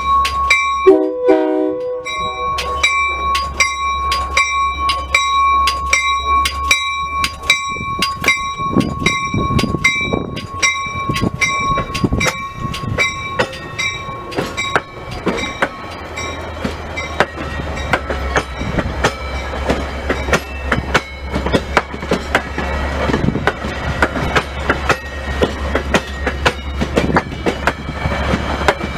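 Metra commuter train departing: a short horn blast about a second in, a bell ringing in quick, even strokes, then the stainless bilevel coaches rolling past with wheels clacking over the rail joints, the rumble building from about a third of the way in.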